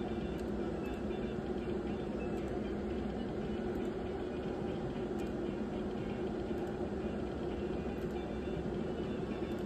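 Steady low droning room noise with a constant hum and no distinct events.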